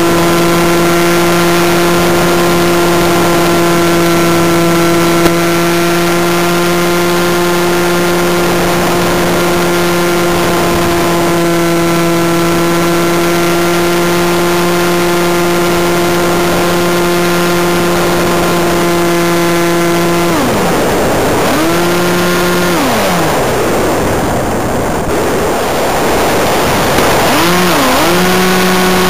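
Twin electric motors and propellers of a HobbyZone Firebird Freedom RC plane, heard from a camera on board, whining steadily under power. About two-thirds of the way through the throttle drops, blips up once briefly, and the plane glides with air rushing past; near the end the motors spool back up.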